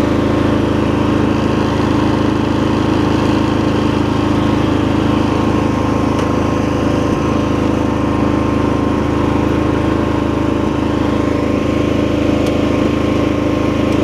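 A garden tractor's 20 hp V-twin engine running at a steady speed while the tractor drives along.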